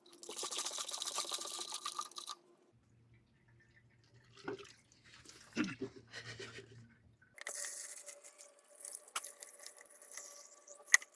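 Engine flush liquid being poured into the engine's oil filler, heard as a hissing pour in two stretches of a couple of seconds each. Between them there is a faint low hum and a few soft knocks.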